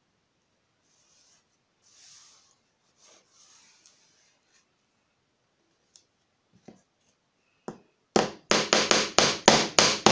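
Faint rubbing as a thin wooden batten is slid and pressed into place over paper on plywood. About eight seconds in comes a quick run of about nine light hammer blows, roughly four a second, driving a small headed nail through the batten into the plywood.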